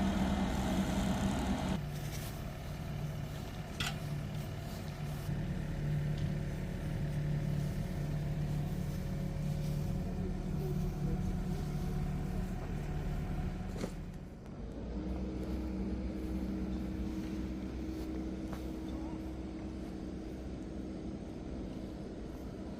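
An engine running steadily, with a couple of sharp clicks; a little past halfway the sound dips briefly, then settles on a slightly different, steadier note.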